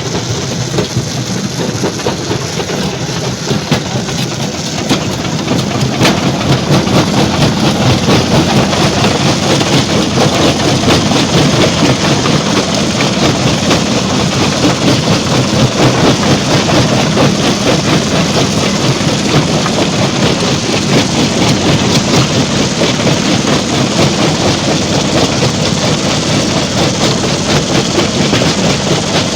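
Stone crusher plant machinery running: a loud, steady clattering din of machine and rock, getting louder about six seconds in.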